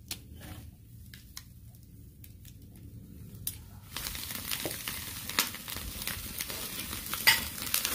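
A few light clicks and scrapes from a spoon on crab shell, then about four seconds in, Dungeness crab coated in salted duck egg yolk sizzling and crackling in a wire grill basket over hot charcoal, with a sharp crack near the end.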